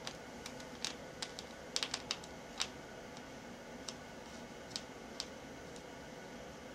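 Small sharp clicks and ticks at irregular intervals, with a quick cluster about two seconds in, from a small Phillips screwdriver and tiny screws being fitted into a laptop's plastic screen frame.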